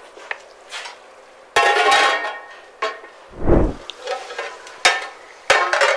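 Chicken sizzling in masala in an aluminium pot, with a wooden spoon stirring, the clatter and clinks of a metal lid, and one dull thump about halfway through as the lid settles on the pot. Stirring and sizzling pick up again near the end.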